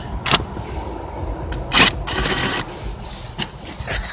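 A rubber intake coupler with a metal worm-drive hose clamp being handled and pushed onto an ATV's air intake tube: three sharp clicks and clinks spread through, over a low rustling.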